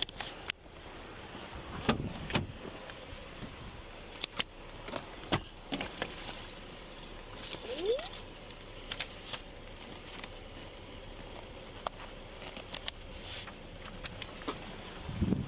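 Keys jangling, with scattered clicks and rattles coming and going.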